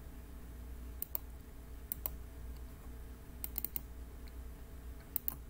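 Computer mouse clicking, sharp ticks in quick pairs about four times, over a low steady hum.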